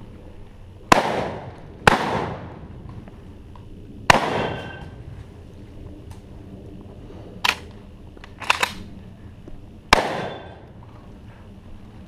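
Shotgun shots fired outdoors at targets: four loud blasts about one, two, four and ten seconds in, each with a long echo trailing off. A few quieter, sharper cracks come between seven and nine seconds in.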